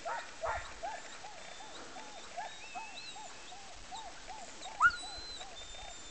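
Sled dogs yipping over and over, one dog giving short arched yips at about three a second, with higher whining from others. A single louder rising yelp comes about five seconds in.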